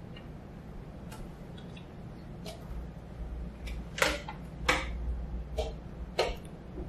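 Low steady hum of a quiet room, with scattered sharp clicks; the two loudest come about four and four and a half seconds in.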